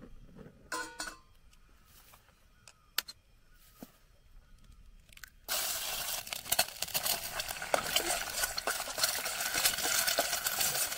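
A few light clicks and taps as eggs are cracked against a steel pot, then about five and a half seconds in a sudden loud sizzling as the egg hits hot oil on a gas camping stove, continuing as a dense crackling frying sound.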